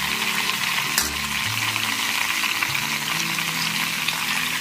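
Mutton leg searing in ghee on a flat tawa: a steady sizzle, with a single sharp click about a second in.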